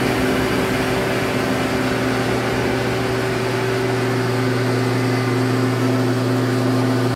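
Hardinge HC chucking lathe running under power: a steady motor and drive hum at one unchanging speed.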